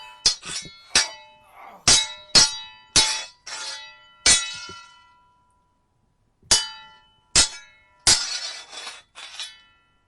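Sword blades clashing in a fight: sharp metallic clangs that ring after each hit, coming in quick flurries. A pause of about a second and a half falls in the middle. A rougher run of rapid strikes comes near the end.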